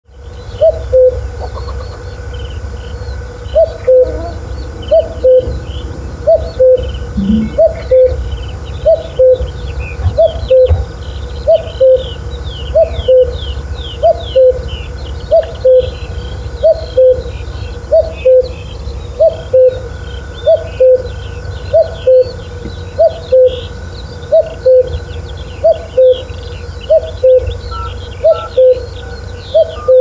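Common cuckoo calling its two-note "cuck-oo", a higher note falling to a lower one, repeated steadily about every second and a quarter after a short gap near the start. Other small birds chirp faintly in the background over a low rumble.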